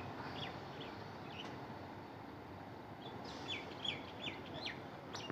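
Small birds chirping: a few short falling notes in the first second and a quick series of them from about three to five seconds in, over a steady low background noise.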